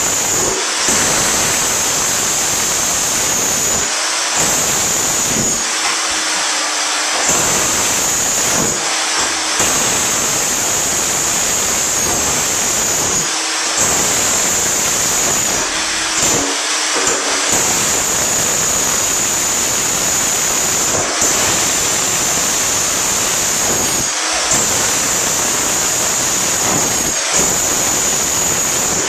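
Small Harbor Freight electric breaker hammer chiseling into a cast iron bathtub. It runs as a very loud, continuous rapid hammering, broken by about ten brief pauses.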